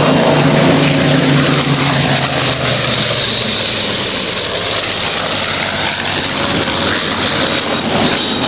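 Supermarine Spitfire fighters flying by, their V12 piston engines running. A steady engine note in the first two seconds gives way to a broad rushing noise as they pass.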